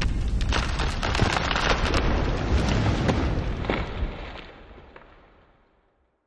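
Logo-reveal sound effect: a dense crackle of sharp clicks over a low rumble, dying away about four to five seconds in.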